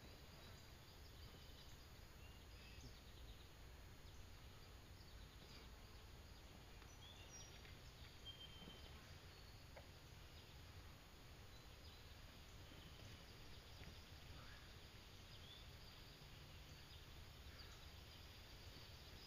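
Near silence: faint outdoor ambience with a low steady hum and a few scattered faint high chirps.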